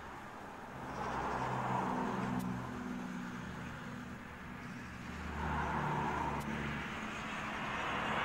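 Pratt & Whitney JT3D turbofans of a Boeing 707 running at takeoff power during the takeoff roll, a steady jet roar that swells twice and grows louder toward the end as the aircraft approaches and rotates.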